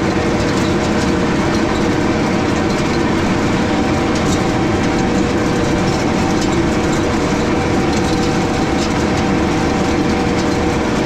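Tractor engine running steadily while pulling a no-till drill across a pasture, a constant drone with a faint rattle of machinery over it.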